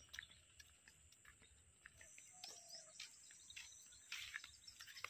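Faint rural ambience: a steady high-pitched insect drone with scattered short bird chirps.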